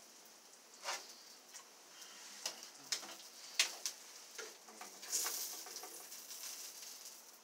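Food sizzling on a grill as a steady faint hiss, with several sharp clicks and knocks spread through it and a louder burst of hissing about five seconds in.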